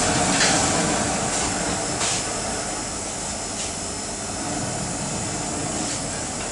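Steady rushing roar of a restaurant kitchen, with a few faint clicks and knocks.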